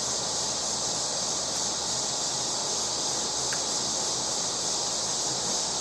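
Steady outdoor insect chorus, an unbroken high-pitched drone.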